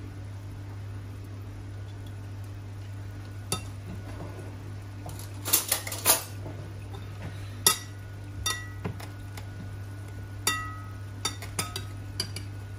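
Metal kitchen tongs clinking against a ceramic bowl and the stainless steel inner pot of an electric pressure cooker while chunks of beef are lifted and dropped in. Scattered clinks, some with a brief metallic ring; the loudest is a quick cluster near the middle.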